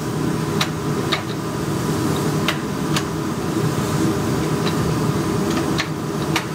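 Steady mechanical hum with a scattering of light clicks and taps.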